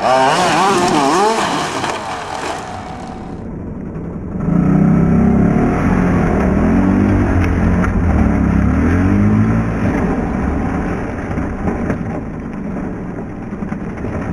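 Radio-controlled monster truck engine revving up and down at a high pitch. After about four seconds a deeper engine revs and falls for several seconds, then settles to a steadier drone.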